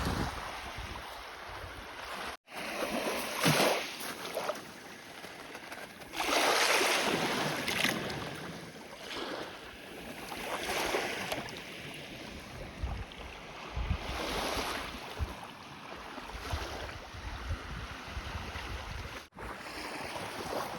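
Lake Superior waves washing in on the shore, each wash swelling and fading every few seconds, with wind buffeting the microphone.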